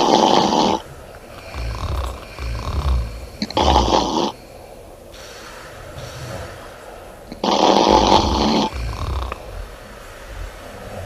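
A woman snoring loudly: three heavy snores about every three to four seconds, with quieter breathing sounds between them.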